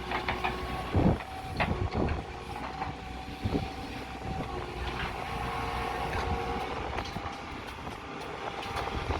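Scaffold dismantling work: scattered knocks and clanks, the loudest about a second in, over a steady mechanical hum with a few held tones.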